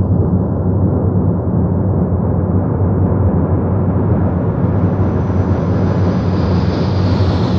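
Harsh noise drone music: a loud, dense rumbling wall of noise with a heavy low end. It starts dark and brightens gradually as higher hiss opens up over the seconds.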